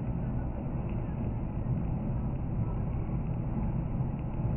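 Steady engine and tyre noise inside a car's cabin as it drives at about 80 km/h on a snow-covered road, speeding up slightly; a low, even rumble.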